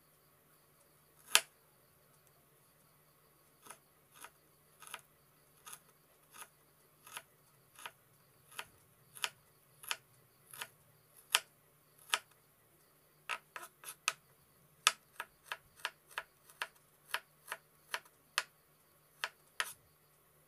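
Chef's knife chopping on a bamboo cutting board: sharp single knocks of the blade on the wood, one loud one about a second in, then a steady run of cuts that quickens to about two a second in the second half.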